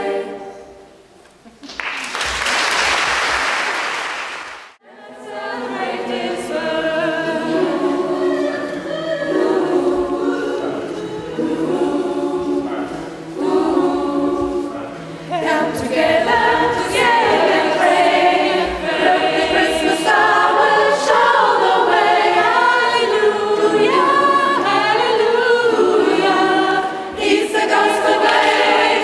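A choir finishes a piece, followed by about three seconds of applause that cuts off abruptly. About five seconds in, a choir begins a new song, unaccompanied voices singing in several parts.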